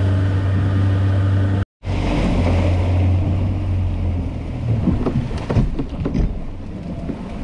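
Outboard motor of a small open skiff running at speed, a steady low drone, with wind buffeting the microphone and water rushing past the hull. The sound drops out briefly about a second and a half in. After about four and a half seconds the drone fades, leaving gusts of wind and splashing water.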